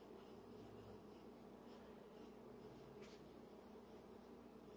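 Faint scratching of a colored pencil drawing short strokes on paper, over a low steady hum.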